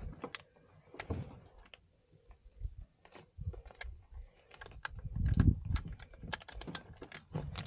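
Glider seat harness being fastened at close range: a string of sharp metal clicks and rattles from the buckle and straps, with a louder low rumble about five seconds in.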